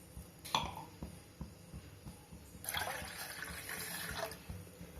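Water poured into a cooking vessel, one splashing pour lasting about a second and a half in the second half, after a short knock about half a second in.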